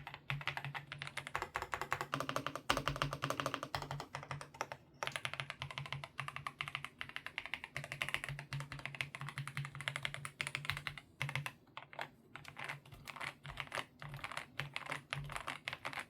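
Fast typing on a mechanical keyboard fitted with GGBOY Matcha Green linear switches (40 g, POM and PA66 housing): a dense run of key clacks, with short pauses about five seconds and twelve seconds in.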